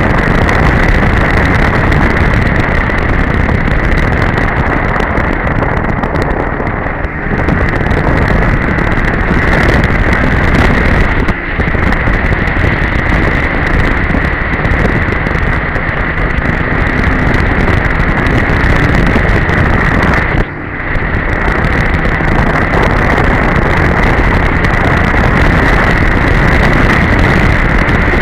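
Polaris Edge two-stroke snowmobile running steadily at trail speed, with a steady high whine over the engine noise and wind buffeting the microphone. The sound dips briefly three times, about 7, 11 and 20 seconds in.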